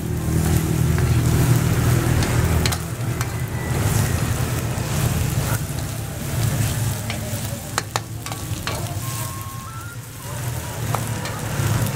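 Fried rice sizzling in a steel wok as a metal spatula stirs and scrapes it. There are a few sharp clinks of the spatula against the wok about eight seconds in, and a low rumble underneath during the first few seconds.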